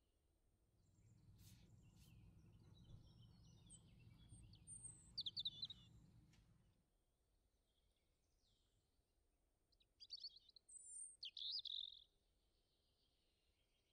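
Faint bird chirps and short calls, a few brief phrases, over a faint low rumble that stops about seven seconds in.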